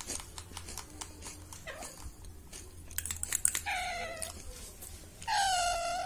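Baby Alexandrine parakeet being spoon-fed Cerelac: light clicks as it feeds from the metal spoon, then two pitched begging calls, a short one a little past halfway and a longer one near the end.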